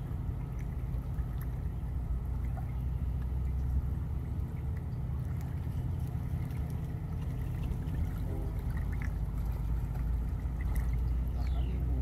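River water lapping and trickling at the shore over a steady low rumble.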